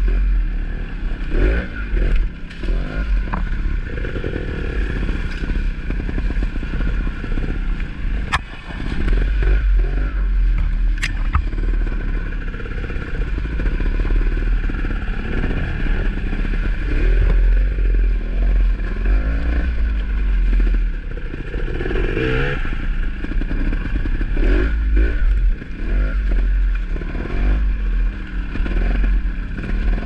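Dirt bike engines running at low revs, the throttle blipped up and down as the bikes crawl over rough, rocky trail. Occasional clatter, scraping and sharp knocks come from the bikes striking rocks and branches.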